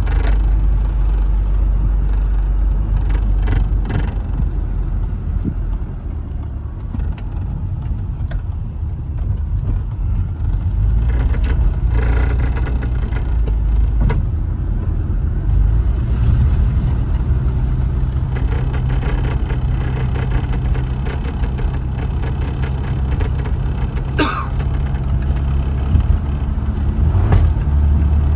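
Interior drive noise of a 1996 Rover Mini 1.3L cruising at about 50 mph. Its four-cylinder engine drones under a heavy low rumble of wind buffeting through the open windows and road noise. A single sharp click sounds near the end.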